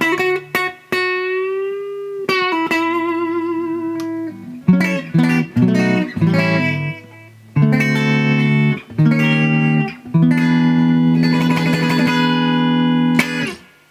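Fender Telecaster played through a DOD FX80-B Compressor Sustainer into a Fender Super 210 tube amp: a long sustained single note with a bend and vibrato, then a run of notes and several long ringing chords that stop just before the end. The compressor evens out and lengthens the notes and dulls some of the high end.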